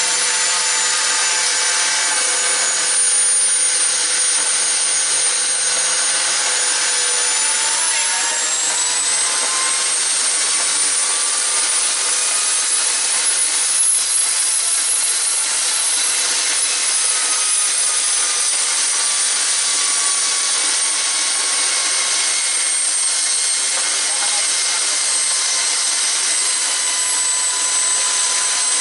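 Turbocharger on a homemade wood-fired turbo stove spinning, a steady jet-like rushing noise with a high whine. The whine drifts slowly in pitch, rising to a peak about halfway through and then easing back down.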